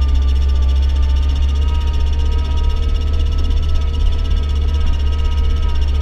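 Steady low drone of a UAZ Patriot's engine and tyres, heard inside the cabin while driving over snow, with music playing under it.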